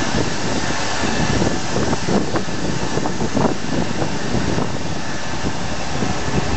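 Steady mechanical noise of chemical-plant machinery, with a faint steady whine above it and irregular low buffeting on the microphone.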